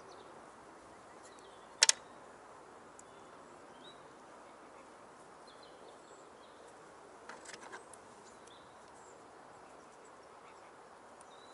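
Sharp clicks of small fishing tackle handled close by: a loud double click about two seconds in and a few softer clicks around seven and a half seconds, over a faint outdoor background with bird chirps.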